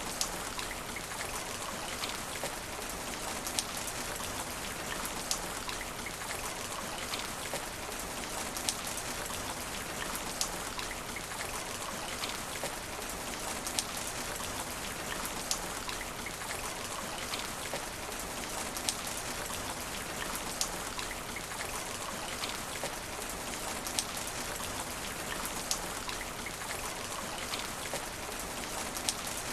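Steady rain falling on asphalt, a dense even hiss with scattered sharper drips and drop impacts.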